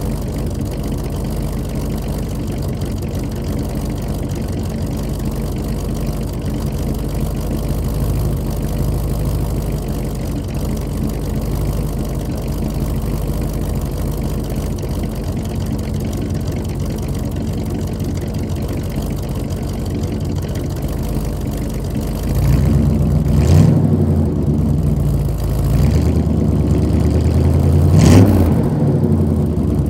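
1986 Chevrolet C-10 pickup's engine idling steadily, still warming up after a cold start. About three-quarters of the way in it is revved: a short blip, another, then a sharper rev that rises and falls near the end. It settles back to a slightly faster idle.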